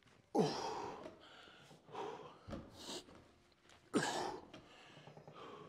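A man's forceful, voiced exhalations as he strains through barbell rollouts: two hard breaths out, each dropping in pitch, about three and a half seconds apart, with shorter breaths between them.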